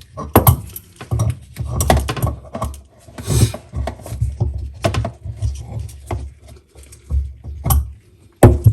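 Irregular metallic clanks, clicks and knocks of an adjustable wrench working a faucet supply-line nut under a sink, with handling bumps.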